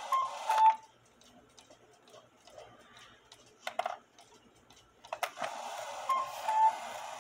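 Cuckoo clock calling: two short whistle notes, high then lower, over a hiss of bellows air at the start, then faint ticking of the movement for several seconds, a couple of clicks, and the strike train running again about five seconds in with another high-then-low cuckoo call.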